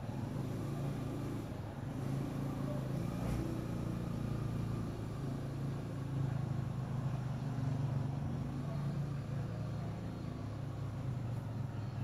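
A motor vehicle's engine running steadily, a low hum that holds through the whole stretch.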